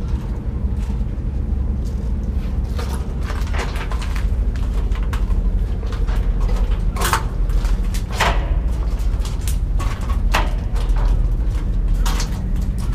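Footsteps on perforated steel scaffold planks: irregular clanks and knocks as the boards and tube frame take each step, over a steady low rumble.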